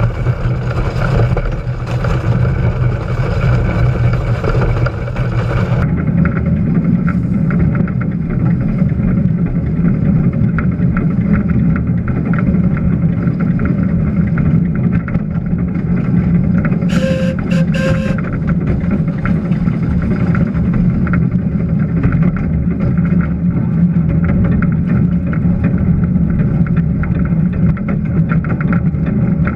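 Small heritage locomotive running along the track, heard up close from low on its body: a steady rumble with wind on the microphone. The sound shifts at a cut about six seconds in. Three short high-pitched blasts come about two-thirds of the way through.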